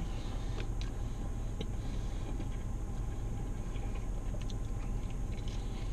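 Steady low hum of a car idling, heard inside the cabin, with a few faint clicks of chewing a mouthful of chicken wing.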